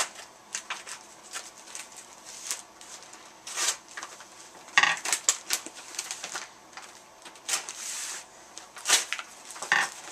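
Packaging being handled and opened by hand: irregular rustling, crinkling and clicking, with louder bursts of tearing or crumpling at several points.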